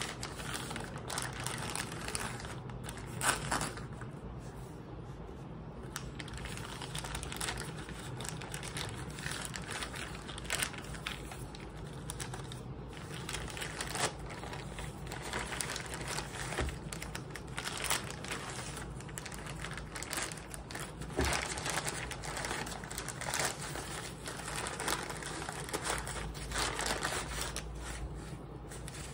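Plastic poly mailer crinkling and rustling in irregular crackles as it is slit open and a wrapped package is pulled out of it.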